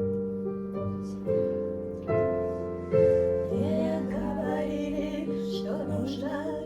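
Piano playing slow, held chords, struck afresh every second or so. A voice sings wordlessly over them through the middle.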